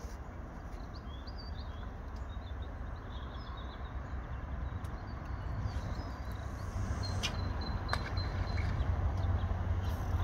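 Wind rumbling on the microphone, growing stronger towards the end, with small birds chirping faintly in the first few seconds and two sharp clicks about seven and eight seconds in.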